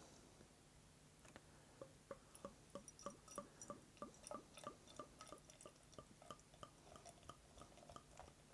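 Beer glugging faintly out of a bottle into a glass, a regular series of short gulps about three a second that starts about a second in.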